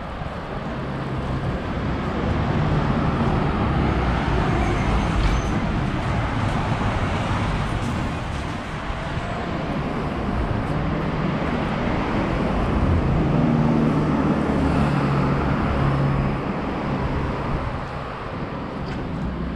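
Street traffic: cars going past, with engine hum and tyre noise that swell twice and fade.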